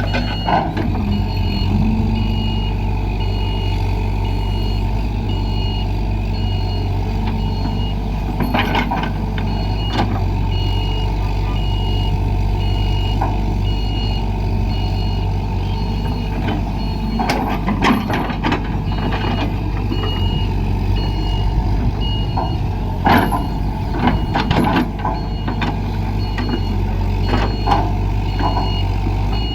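Excavator's diesel engine running steadily under a regularly repeating high warning beep, with scattered metallic clanks and knocks from the machine working.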